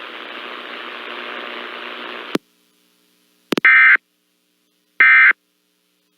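A steady hiss cuts off with a click a little over two seconds in. After a pause and another click come two short bursts of warbling digital data tones, about a second and a half apart: the Emergency Alert System end-of-message (EOM) signal that closes an EAS alert.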